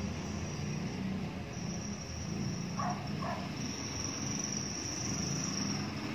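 Background ambience: a high-pitched insect drone that drops out briefly and swells in the middle, over a steady low rumble, with two short faint calls about three seconds in.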